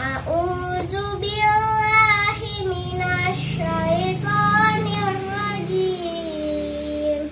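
A young girl chanting Quranic recitation to a slow melody, in long held notes that glide up and down; the last note slides slowly downward and ends near the end. A steady low hum runs underneath.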